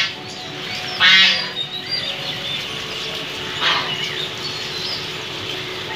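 Domestic geese honking: two loud, harsh calls, about a second in and again near four seconds in, over a steady hiss of falling rain.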